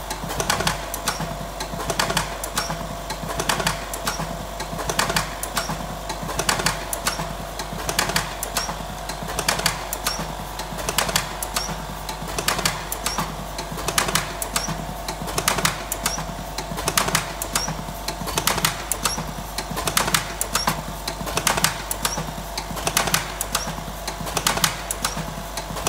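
Electric cigarette filling machine running in turbo mode, with an even mechanical clacking of about two to three strokes a second over a steady motor hum.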